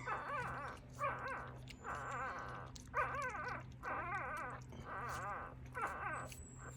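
A young Coton de Tulear puppy whining and crying in a string of about seven short, high, wavering cries.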